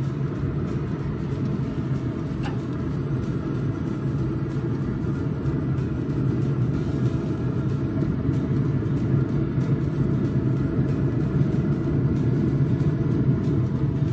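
Steady low hum of a running Z Grills pellet smoker, its fan going while it holds temperature, with one light click about two and a half seconds in.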